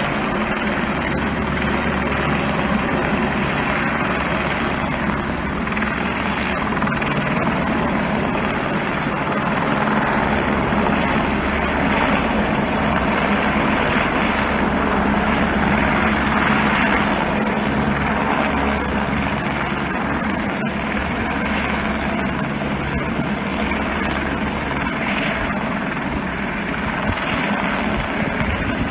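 Helicopter running steadily and loudly, its rotor giving an even, unbroken drone.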